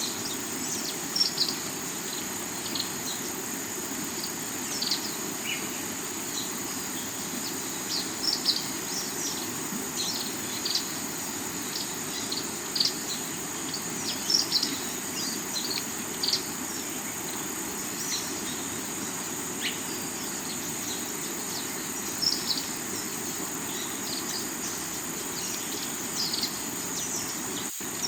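River water flowing steadily over rocks, with a constant high-pitched insect drone and frequent short bird chirps layered over it.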